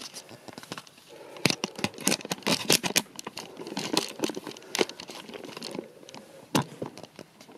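Irregular rustling and crackling with a quick scatter of sharp clicks, densest in the middle seconds, then one last click near the end.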